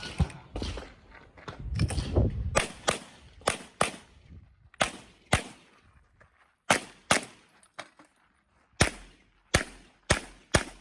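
Handgun shots fired in quick pairs, with short pauses between the pairs: about a dozen shots, typical of IPSC double taps on targets.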